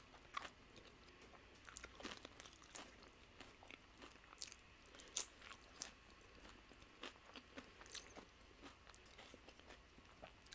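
Faint, close-miked chewing of crisp tortilla chips: irregular crunches, sometimes several a second, with soft mouth sounds between.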